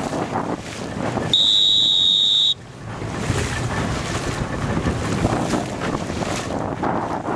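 Wind buffeting the microphone over choppy sea water. A loud, steady, high-pitched beep is the loudest sound, lasting a little over a second, starting about a second and a half in.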